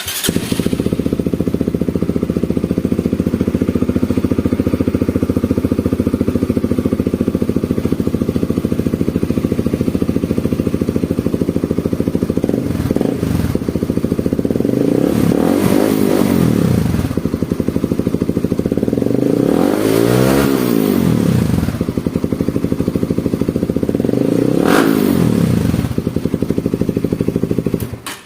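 Honda CBR150R's single-cylinder four-stroke engine breathing through an aftermarket Vmax power pipe exhaust. It idles steadily, then in the second half it is revved up and let back down three times.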